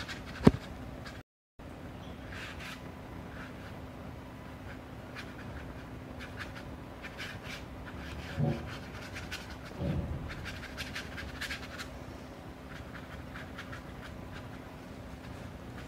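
Watercolour brush dragged across paper in short, irregular strokes, giving a soft scratching. A sharp click comes just after the start, two brief low thumps a little past halfway, and a steady low hum runs underneath.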